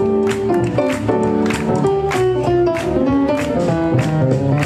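Swing jazz music with a steady beat of about two strokes a second.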